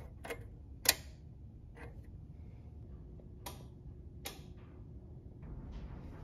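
A forklift's ignition key being inserted and turned in its key switch: a few sharp metallic clicks, the loudest about a second in, then a couple more spaced a second or so apart, over a steady low background hum.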